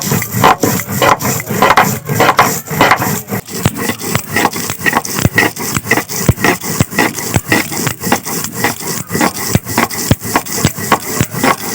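A stone roller rubbed back and forth on a flat grinding stone (shil-pata), grinding chilies into a paste, in steady rhythmic strokes about three a second.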